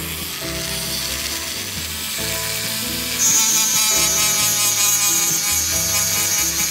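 Handheld rotary tool with a sanding disc grinding the paint off a die-cast metal toy car body. A steady high whine comes in about three seconds in, and the sound gets louder from there.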